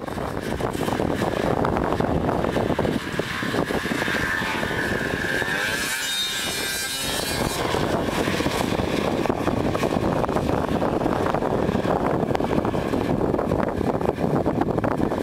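Snowmobile engine running at high throttle. Its pitch climbs and falls about halfway through, then it carries on as a steady, noisier drone.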